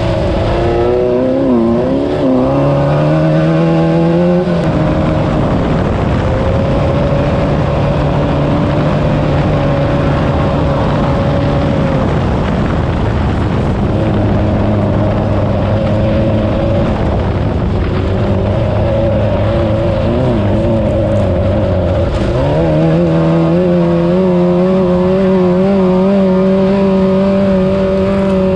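Class 9 off-road race buggy's engine running hard under load. Its revs rise and fall over the first few seconds, hold fairly steady through most of the stretch, then drop and climb again about two-thirds of the way in, with rough rumble and rattle underneath.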